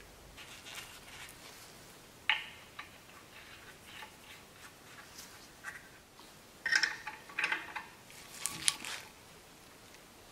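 Scattered small ticks at the compressor pump's oil drain, then a run of sharper metallic clinks from about seven to nine seconds in, as the drain plug is threaded back into the pump and snugged with a 9/16 wrench.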